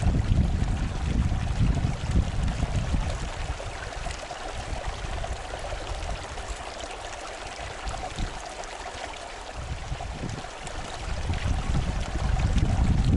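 Steady rushing of a mountain river, an even hiss of running water. Low wind rumble on the microphone is strong at the start, fades in the middle, and builds again near the end.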